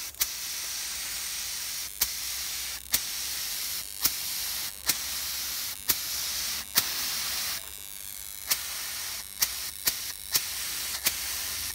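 Compressed air hissing steadily out of a homemade powder-coating gun as it sprays powder, with sharp snaps about once a second. The hiss drops off about two-thirds of the way through.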